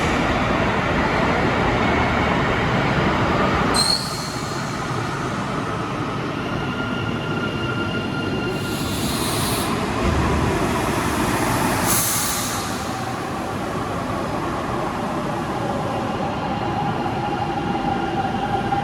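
Train running on rails, with steady rumbling and drawn-out wheel squeal tones. The noise drops a little about four seconds in, and two short high hisses come midway.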